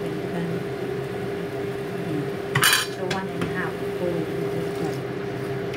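Kitchen cookware clattering once, a brief sharp clink and rattle about two and a half seconds in, over a steady low hum.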